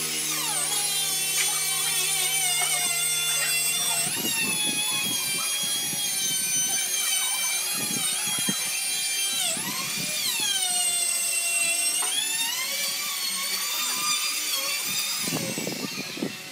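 A small high-speed electric power tool motor whining, its pitch sagging and recovering several times as it is loaded and eased off, with the deepest sag about ten seconds in. It fades out near the end.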